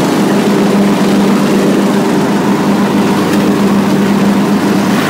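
Craftsman LT2000 riding lawn tractor's engine running steadily at a constant pitch while mowing a steep hill.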